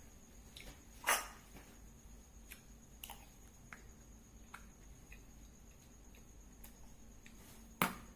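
Eating nasi goreng: two sharp clinks or knocks, about a second in and near the end, with faint clicks of chewing and handling the food between them.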